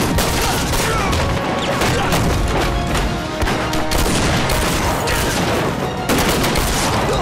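Battle sound effects, repeated gunfire and explosions, mixed with a dramatic film score.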